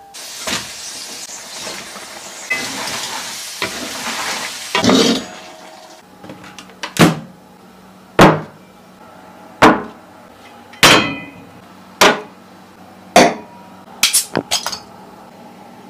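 Crayfish sizzling in a hot wok for about five seconds, followed by a series of sharp knocks about every second and a quarter, ending in a quick run of four.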